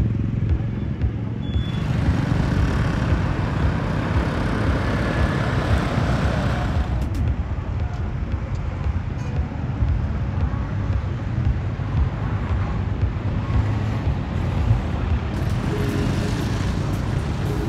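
Street traffic: car and motorbike engines making a steady low rumble that swells as vehicles pass, from about two seconds in and again near the end.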